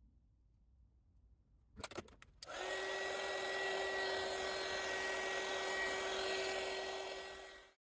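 A few clicks, then a handheld hot-air blower (a heat gun or dryer) starts and runs with a steady whoosh and a steady whine, drying freshly applied paint on a sculpted figure. It cuts off suddenly near the end.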